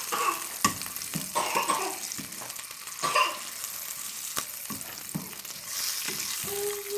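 Dried figs and garlic frying in olive oil in a pan, with a steady sizzle. A utensil clicks and scrapes against the pan several times as the figs are turned and poked.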